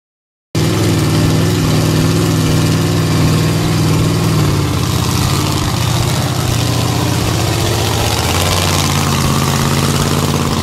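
Predator monster truck's engine running steadily at a low, even pitch, cutting in abruptly about half a second in, with a hiss over it.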